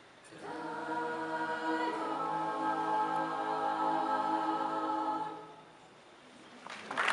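Mixed choir singing a cappella: closing chords, shifting once and then held for several seconds before being released. Applause breaks out near the end.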